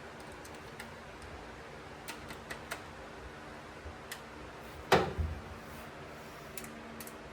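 Scattered light clicks and taps of hand-tool work on old truck wiring, with one loud sharp clack about five seconds in, over a faint steady hum.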